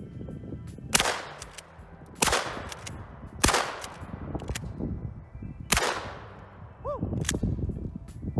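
Four shots from a CIL Model 607H (Savage 67) 12-gauge pump-action shotgun, the first three a little over a second apart and the fourth about two seconds later, each with a ringing tail. A man whoops "Woo!" near the end.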